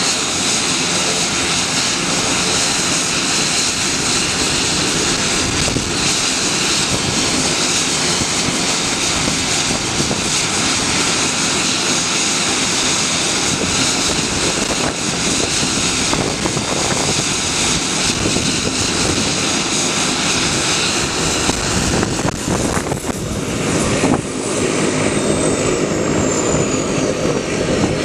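Bombardier Dash 8 Q300's twin Pratt & Whitney PW123 turboprops running on the apron, a steady turbine whine over propeller noise. Near the end the sound changes to a Pilatus PC-12's single PT6A turboprop as it taxis in, with a high whine falling steadily in pitch.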